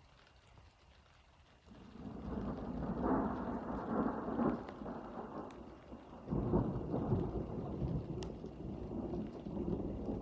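Thunder rumbling in two long rolls, the first building about two seconds in and the second breaking out strongly around six seconds in, with a few faint ticks of rain.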